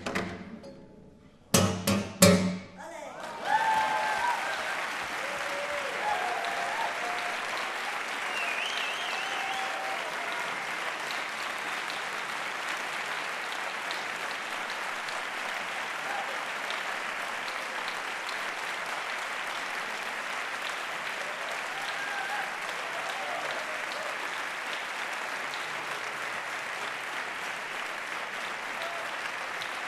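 Classical guitar ending a piece with a few hard-struck final chords, the loudest sounds here. About three seconds in, the audience breaks into steady applause that keeps going, with a few voices calling out over it.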